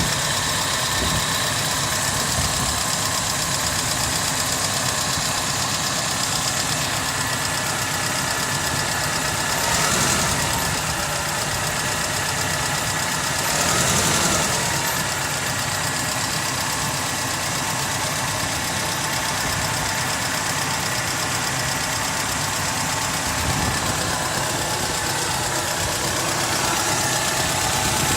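Mercedes-Benz M111 inline-four petrol engine idling with a knock in it, the fault the owner is showing. The revs rise briefly twice, about a third of the way in and again about halfway.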